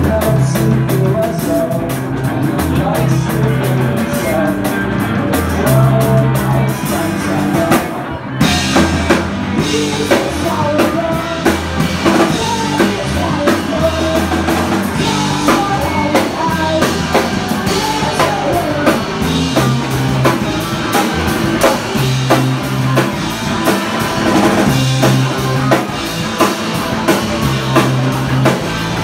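A live rock band playing: electric guitars over bass notes and a steady drum beat with cymbals. About eight seconds in the cymbals break off for a moment, then the band comes back in fuller.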